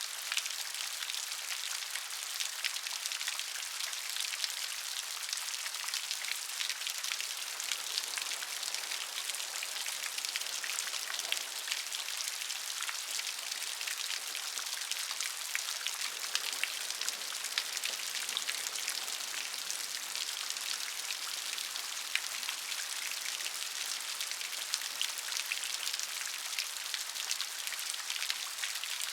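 Steady rain with many individual drops pattering on a surface, a dense hiss with crisp drop strikes scattered through it.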